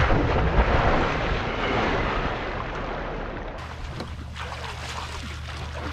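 A person jumping off a boat into lake water: a sudden loud splash, then churning water that fades over the next two to three seconds.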